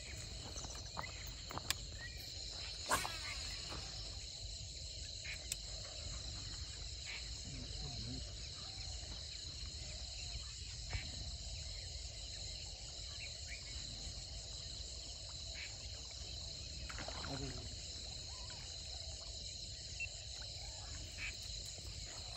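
Steady evening insect chorus, a continuous high-pitched trill, with a few brief sharp clicks scattered through it.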